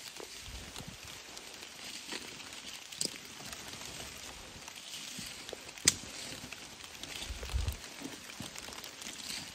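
Footsteps pushing through wet ferns and brush, the foliage rustling and swishing against legs, with small crackles of twigs and a sharp snap about six seconds in.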